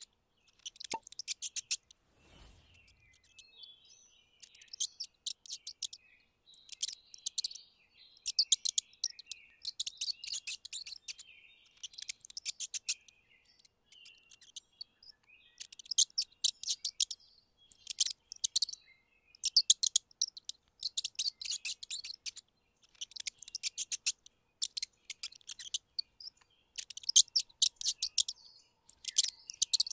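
Mice squeaking: bursts of rapid, very high-pitched chirps, each lasting half a second to a second, repeating every second or two.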